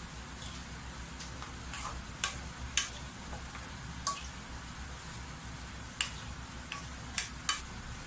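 Black spatula stirring pork and potato chunks in a metal wok: irregular sharp clicks and scrapes against the pan, about ten in all, over a faint sizzle of the simmering soy-sauce liquid and a steady low hum.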